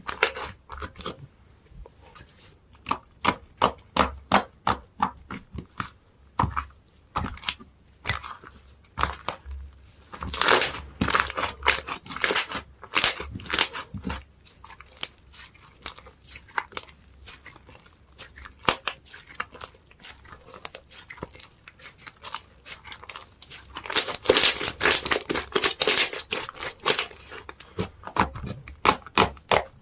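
Slime being squeezed and pressed by hand, giving rapid crunchy clicks and crackles in spells, busiest about ten seconds in and again near the end, with sparser single clicks between.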